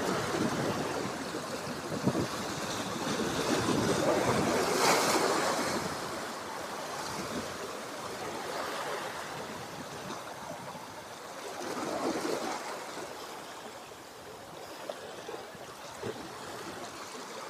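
Sea waves washing against a rocky shore, in swells that rise and fall, loudest about five seconds in and again around twelve seconds.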